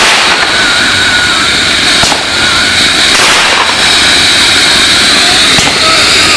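Gold rain volcano firework fountain spraying sparks with a loud, steady hiss, broken by a few sharp crackles.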